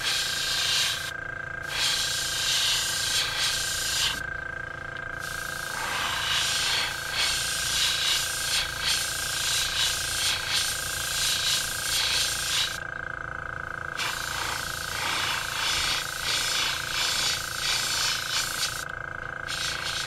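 Iwata airbrush spraying paint: a hiss of air and paint that starts and stops in several bursts of one to seven seconds, with short pauses between them, over a steady hum.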